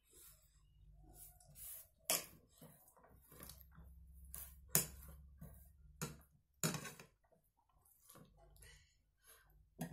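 Fingers mixing rice and dal on a plastic plate, with eating sounds: scattered sharp clicks and smacks, a few of them louder, over a low steady hum.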